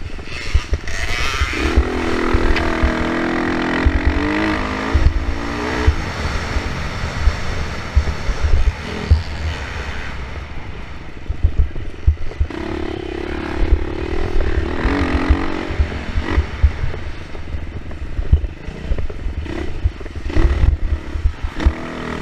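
Dirt bike engine running hard on a trail ride, its pitch climbing and dropping with throttle and gear changes, loudest about two to five seconds in and again about thirteen to fifteen seconds in. Irregular low thumps throughout.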